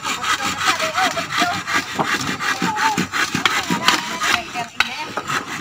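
Hand saw cutting through a wooden plank in quick back-and-forth strokes.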